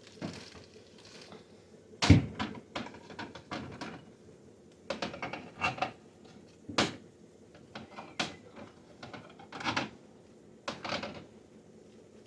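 Sauce and condiment bottles and jars knocking and clinking as they are handled and set down, about a dozen separate clatters with the loudest about two seconds in, over a steady low refrigerator hum.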